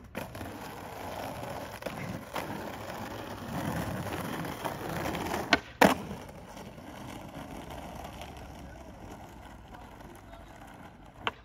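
Skateboard wheels rolling over rough asphalt, a continuous gritty rumble. Two sharp clacks a little past halfway, the second the loudest, and another near the end.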